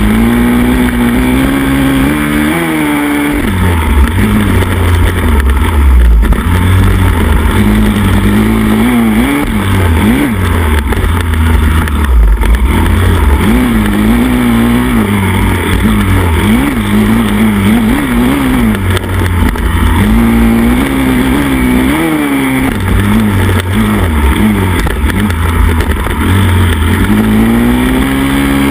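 Pit bike's single-cylinder four-stroke engine racing on a dirt track, heard close up from a camera on the handlebar. The revs climb and drop again and again as the throttle is opened and shut through corners and over jumps, over a heavy low rumble.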